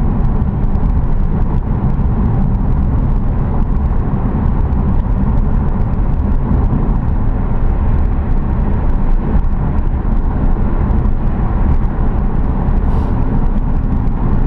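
A car driving at steady speed, with a continuous low rumble of engine and road noise that does not change.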